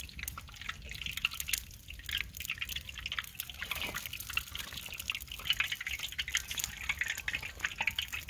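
Light rain falling, heard as a dense, irregular scatter of small drop ticks.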